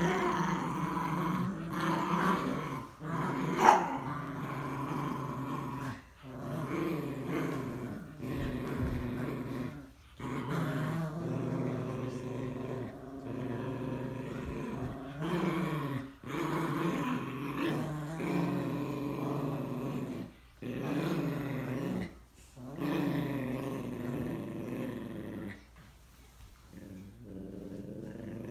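A Morkie and a Yorkie growling in play as they tug at a rope toy: long growling bouts broken by short pauses, with one sharp yip about four seconds in. The growling turns quieter near the end.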